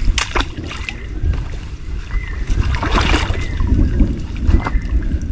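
Wind rumbling on the microphone over a small boat on a river, with water splashing and a few sharp knocks: the loudest right at the start and about three seconds in.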